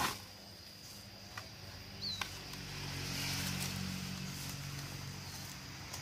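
A low engine hum that swells over a second or so and then slowly fades. A few sharp knocks and a short high chirp come before it.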